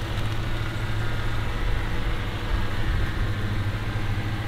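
2019 Honda Passport's V6 engine running steadily at low revs as the SUV crawls over an off-road obstacle, a constant low hum with no revving.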